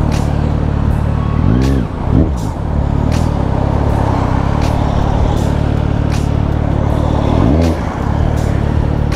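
A motorcycle engine running steadily at speed, with two quick throttle blips where the pitch rises and falls: one about a second and a half in, and one near the end.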